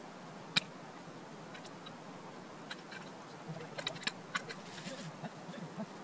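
Scattered light clicks and crunches of people moving about in snow and handling bags and gear, over a steady faint hiss. The sharpest click comes about half a second in, and a small cluster follows around four seconds in.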